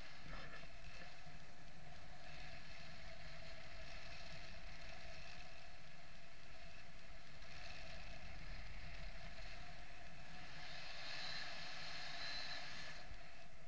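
Wind rushing over an action camera's microphone during paraglider flight: a steady rush and rumble with a whistling tone, and brighter whistling that swells in and out every few seconds.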